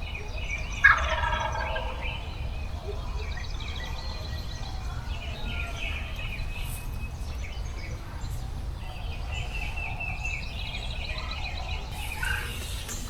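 Wild turkey gobbling, loudest about a second in, with another short gobble near the end. Small birds chirp throughout over a steady low rumble.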